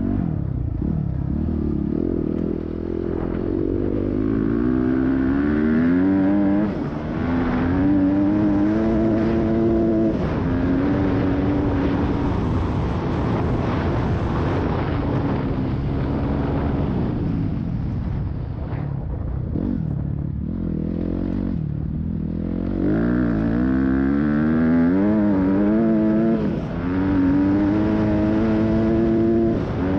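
Yamaha YZ250F four-stroke single-cylinder dirt bike engine at full throttle, revs climbing and dropping in steps as it shifts up through the gears. About two-thirds of the way through, the revs fall away off the throttle, then the engine pulls hard up through the gears again.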